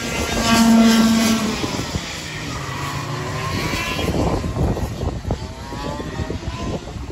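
Go-kart engines running on the track. The engine note is loudest and held steady about half a second to a second and a half in, then its pitch falls and rises again over the next few seconds.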